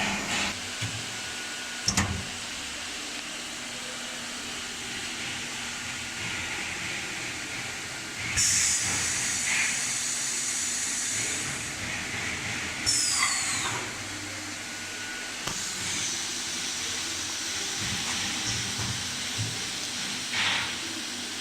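Steady machine hiss with a sharp click about two seconds in, a louder high-pitched hiss for about four seconds starting some eight seconds in, and a short falling squeal just after it.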